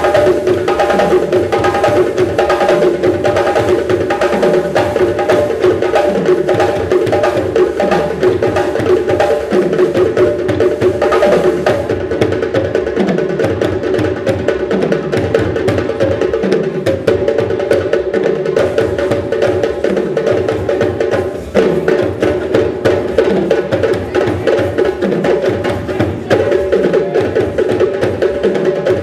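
Music with percussion: sustained pitched instruments over a deep drum note that falls in pitch, repeating about every second and a quarter.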